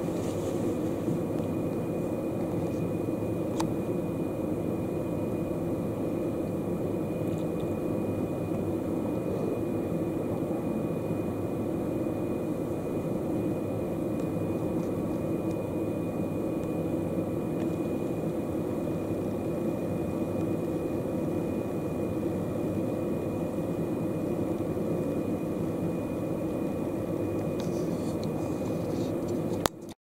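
Steady low rumble of background noise with a thin, steady high whine running over it; no bird calls.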